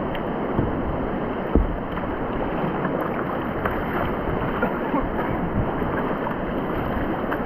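Rushing whitewater of a river rapid, an even, steady wash of noise, with a single sharp knock about a second and a half in.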